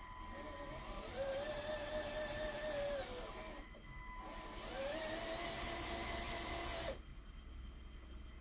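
LEGO Power Functions electric motor whining in two runs of about three and two seconds, its pitch rising as it speeds up and sinking as it slows; the second run cuts off abruptly about seven seconds in.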